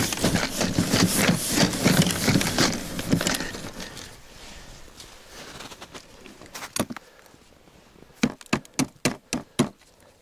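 Snow crunching and clothing rustling as a person in winter gear shifts about and sits down on the ice, followed near the end by a quick run of sharp crunching knocks.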